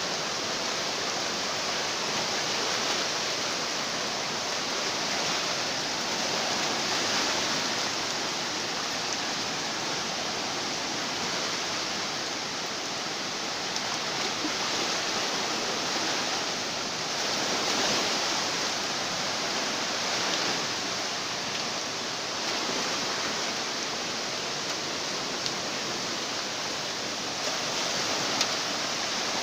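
Rushing floodwater of a river in flash flood: a steady, dense rush of water that swells a little now and then.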